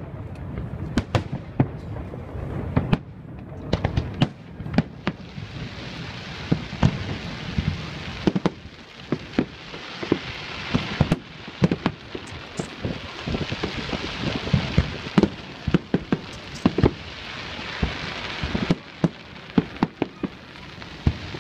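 Aerial fireworks display with shells bursting in quick succession: many sharp bangs. From about five seconds in, a continuous dense crackling hiss joins them, from crackling-star effects.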